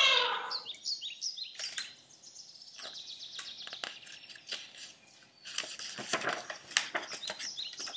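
Rustling and crackling of a picture book's pages being handled and turned, densest in the last two and a half seconds. Before that come a few short, high falling chirps, and at the very start a held vocal note glides down and fades.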